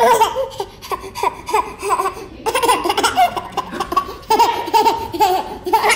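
A baby laughing hard: long runs of quick, high belly laughs, breaking off briefly twice.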